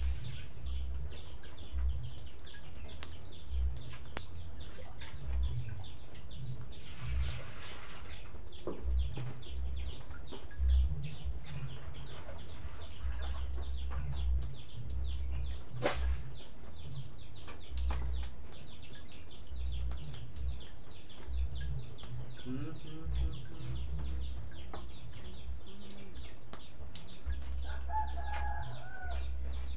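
Rapid high chirping, repeating several times a second throughout, over low thuds and a few sharp taps of a knife slicing meat on a wooden board. A chicken clucks near the end.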